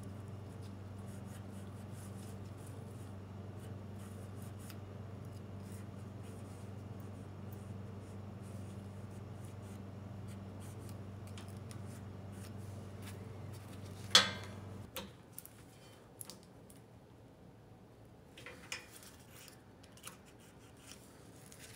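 Feeler gauge and wrench working at a small engine's valve rockers while the valve lash is being set: light metal scrapes and clicks, with one sharp metal clink about 14 seconds in. A steady low hum runs beneath and cuts off just after the clink.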